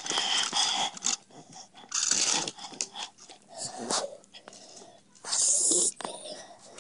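A person's breathy hissing and huffing noises in a few short bursts, about two seconds apart, the loudest near the end.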